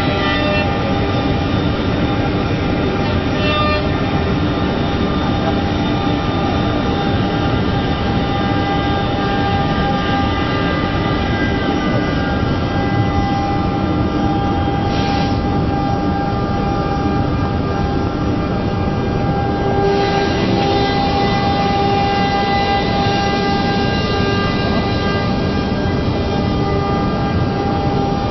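CNC router running while machining MDF: a steady high spindle whine over loud, continuous cutting and machine noise, getting brighter about twenty seconds in.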